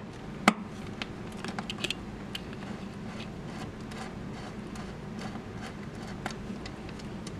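Precision screwdriver working screws out of an Ultimaker 3 3D printer's bottom panel: one sharp click about half a second in, then faint scattered ticks and scrapes of the bit and screws.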